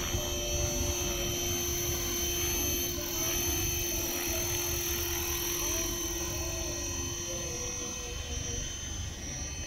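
Align T-Rex 450 SE V2 electric RC helicopter hovering low, with a steady high-pitched whine from its motor and rotors over a low rumble. A lower steady tone in the sound stops about eight seconds in, as the helicopter comes down near the ground.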